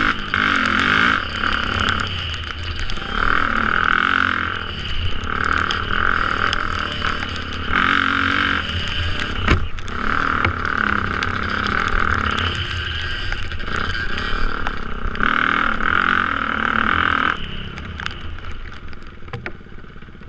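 Dirt bike engine revving up and easing off again and again as the rider works the throttle over rough ground, with a few sharp knocks from the bike. It gets quieter over the last few seconds as the bike slows.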